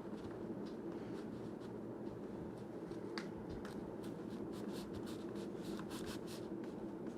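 Heat gun blowing steadily with a low hum, with faint light clicks and taps of the Kydex holster being pressed against the pistol while it is soft.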